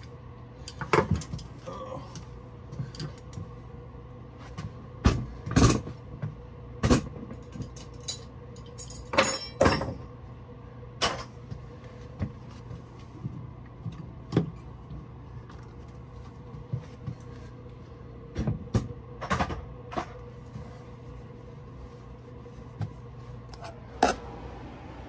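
Irregular sharp knocks and clanks of tools and metal parts being handled on an engine, many separate strikes with a busier cluster about halfway through, over a steady low hum.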